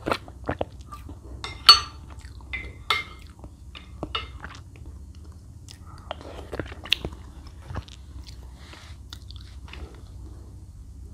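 Close-miked mouth sounds of a person chewing a soft, milk-soaked chocolate cake: scattered sharp wet clicks and smacks, the loudest a little under two seconds in.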